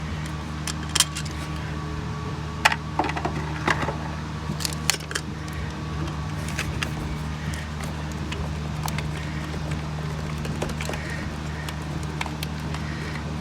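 Sharp metal clicks and clinks of a Torx T15 driver and screws as the throttle position sensor is unscrewed from the throttle body, mostly in the first five seconds, over a steady low hum.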